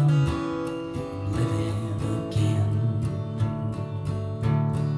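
Acoustic guitar strummed through a short instrumental passage of a slow song, chords ringing on between the strokes with no voice.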